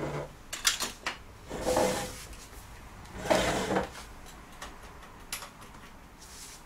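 Things being handled at a computer repair bench: a few sharp clicks and knocks, then two short scraping slides about a second and a half apart, and a last click near the end.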